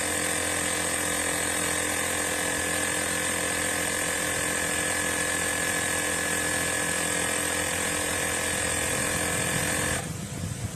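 Blestan cordless tire inflator's compressor running steadily, a steady mechanical rattle with a constant whine, that cuts off abruptly near the end.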